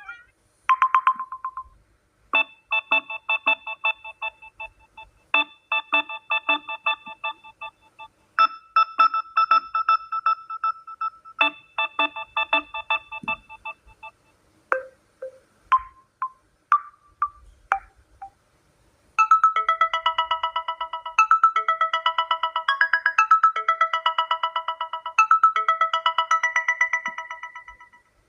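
Samsung Galaxy A01 Core ringtones playing one after another. A short tone comes first, then a melody of quick electronic notes repeating for about twelve seconds, a few scattered single notes, and a second, denser melody that fades out near the end.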